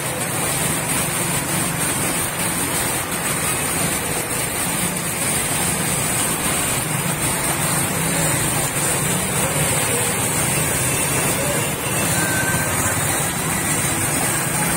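Steady rush of heavy rain and floodwater running over a street, with a low hum of motor-vehicle engines underneath.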